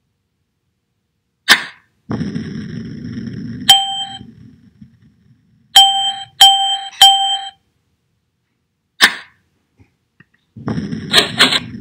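Animated earthquake sound effects: a sharp click, then a low rumble with rattling, followed by four bell-like clinks of the same pitch, three of them about half a second apart. A second click comes near the end, and the low rattling rumble starts again.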